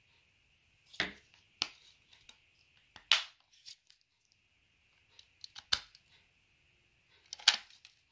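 Metal parts of a Tapetool plant tying machine clicking and knocking as it is handled to take out its tape: a few sharp clicks at irregular intervals, the loudest about three seconds in and near the end.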